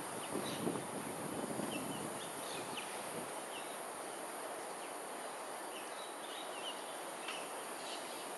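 Outdoor ambience: a steady high-pitched insect drone and short, scattered bird chirps over an even background hiss.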